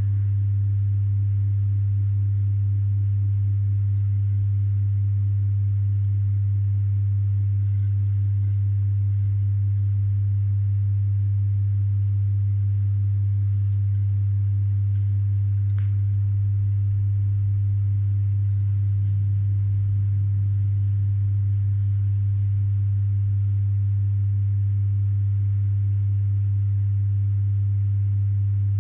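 A loud, steady low hum, one unchanging tone, with a few faint light clicks now and then.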